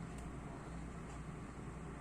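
Faint steady room tone with a low hum and light hiss; no distinct sound stands out.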